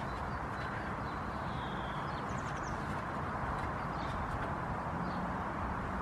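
Steady outdoor background noise, a broad hiss over a low rumble, with a few faint high chirps about two seconds in.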